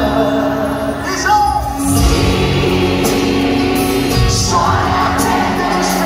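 Live concert music, a band playing a ballad with singing, heard from among the audience in a large reverberant arena.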